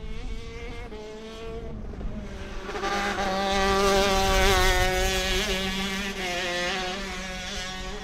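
A 125cc two-stroke shifter kart engine racing past on the track, its pitch rising and falling as the driver works the throttle. It grows louder, is loudest about halfway through, then fades as the kart pulls away.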